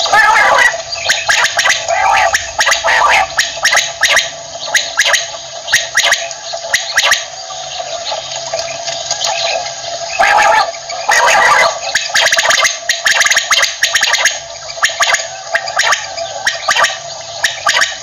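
Common quail (batair) calling: a rapid, rough run of clicking notes, louder near the start and again around ten to twelve seconds in.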